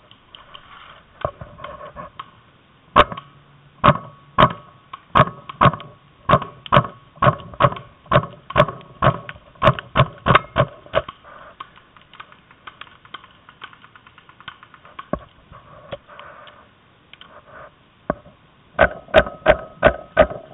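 Paintball markers firing: a long run of sharp pops, two or three a second, a few single shots, then a quick burst of rapid pops near the end.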